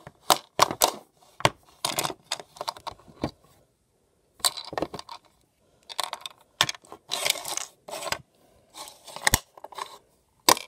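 Small plastic toys being handled and knocked together, a toy pony figure and a plastic treasure-chest toy: a string of light clicks and clatters, with a short pause about four seconds in.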